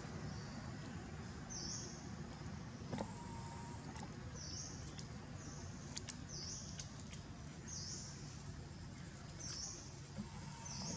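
A short high chirp repeated about seven times, roughly once every second or so, over a steady low background noise, with a few faint clicks.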